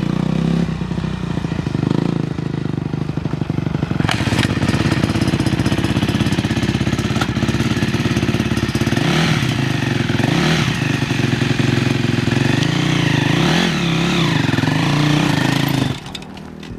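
Honda CRF250R dirt bike's single-cylinder four-stroke engine running at idle, with several quick throttle blips that rise and fall in pitch in the second half.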